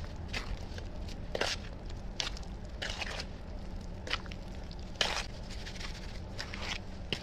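Hand trowel mixing cement, sand and water in a plastic basin: irregular scrapes and wet crunching strokes as the blade stirs the lumpy mix, over a steady low hum.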